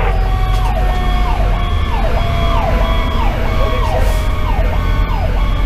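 Fire engine's electronic siren (Sho-Me Powercall) in a fast yelp, sweeping up and down about twice a second, heard from inside the cab. A steadier lower siren tone slowly falls in pitch beneath it, over the low running of the truck's Detroit Series 60 diesel engine.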